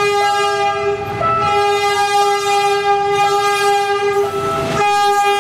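Horn of PNR diesel locomotive No. 922 sounding several notes at once in one long blast, broken briefly near the end before it sounds again, as the locomotive approaches hauling its passenger train.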